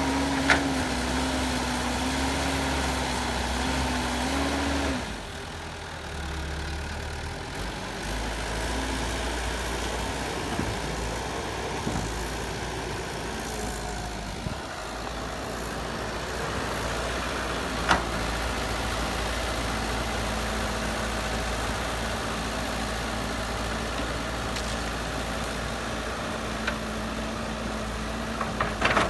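Diesel engine of heavy earthmoving machinery running steadily, with a few sharp knocks. The engine note falls away about five seconds in and settles into a steady low drone.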